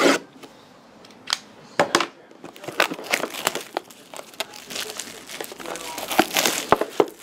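Plastic wrapping crinkling and tearing as a sealed box of hockey trading cards is opened, with a string of sharp clicks and crackles from the packaging.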